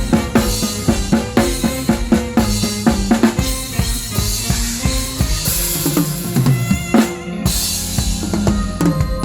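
Live drum kit playing with a band, the drums to the fore: a quick run of snare and tom hits, then a groove under held bass and keyboard notes, with a cymbal crash about seven and a half seconds in.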